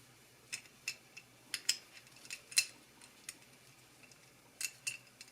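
Light metallic clicks and clinks, about a dozen irregular taps, as small steel parts of a Singer 306K bobbin winder and a screwdriver are handled while a screw is being fitted.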